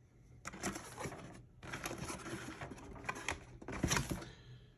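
Cardboard toothbrush box and its paper packaging being handled and opened: rustling and scraping with small clicks, in two stretches, the second one longer.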